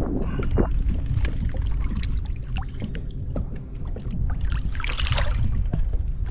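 Water splashing and trickling around a kayak, with a low wind rumble on the microphone, scattered small knocks and a louder splash about five seconds in.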